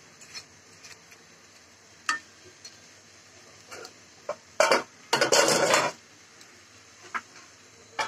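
Metal spatula scraping and knocking against a metal karahi while stirring fried fish and greens: scattered clinks, with a louder run of scrapes about five seconds in. Near the end, a metal lid clanks down onto the pan.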